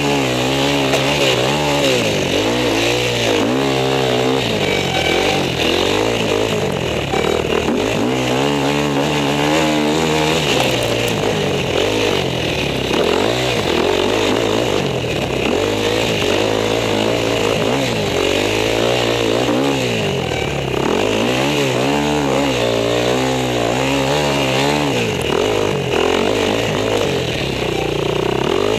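Husqvarna enduro motorcycle engine heard on board, revving up and dropping back again and again as the rider accelerates, shifts and slows along the track.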